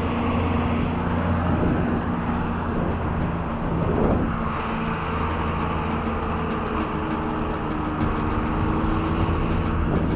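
Engine of a moving vehicle running steadily at driving speed, a low drone with road noise; a brief louder rush of noise about four seconds in.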